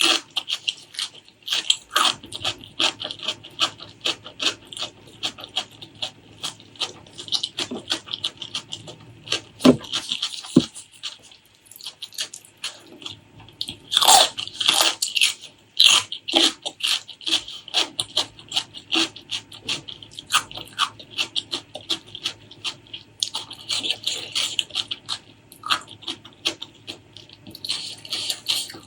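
Close-miked chewing and mouth sounds of a person eating spicy pork leg curry with rice: a dense, uneven run of smacks and clicks with occasional louder bites.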